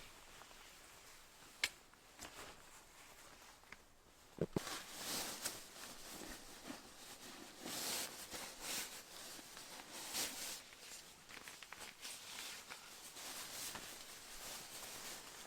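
Irregular soft rustling and scuffing, starting about four and a half seconds in, after a single sharp click near the start.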